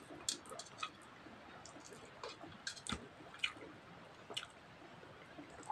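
Quiet eating sounds: scattered soft mouth clicks and smacks of chewing, with fingers mixing rice and curry on a metal plate.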